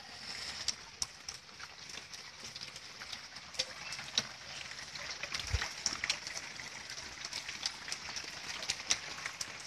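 Steady rain falling on floodwater and nearby surfaces, a continuous hiss dotted with many sharp drop ticks.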